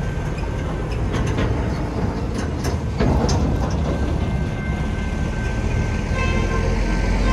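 A dump truck crosses the railroad tracks, its body clattering over the rails several times about one to three seconds in. From about six seconds in, the crossing's General Signal Type 2 electronic bells begin dinging as the gates start to lower for an approaching train.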